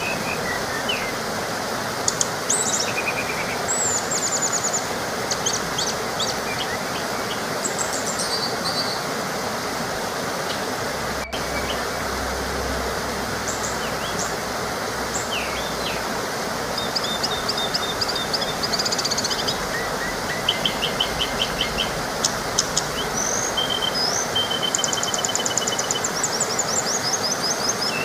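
A small waterfall rushing steadily, with birds chirping, whistling and trilling on and off over it, busier in the second half.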